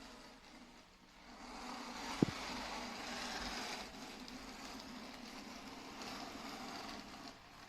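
Robot vacuum running with a steady motor hum and hiss, which swells for a couple of seconds. A single sharp knock sounds about two seconds in.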